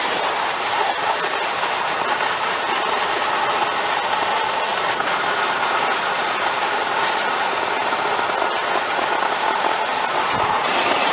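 Oxy-fuel gas torch burning steadily with an even hiss, its flame held on a cracked high-strength steel part to preheat it before welding.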